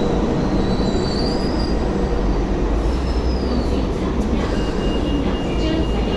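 Hong Kong Light Rail train pulling into the platform and braking to a stop: a steady low rumble of wheels on track, with a couple of faint gliding wheel squeals early on and a thin steady squeal in the last second and a half as it comes to rest.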